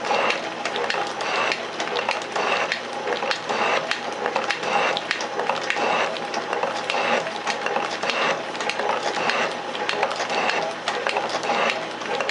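Metal shaper running, its ram stroking back and forth as the tool takes cuts across a metal blank held in the vise, with a mechanical clatter repeating on every stroke.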